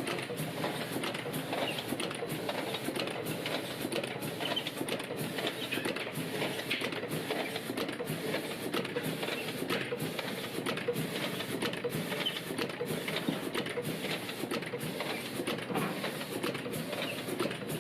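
TX16 gyoza-making machine running: a steady mechanical clatter with a regular beat a little more than once a second.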